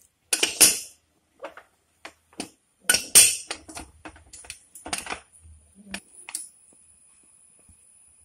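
Aluminium pressure cooker being opened by hand: the lid and its weight knock and clink against the pot body in a series of sharp metal-on-metal clatters, the loudest about three seconds in. The pressure has already been let down after one whistle, so no steam is released.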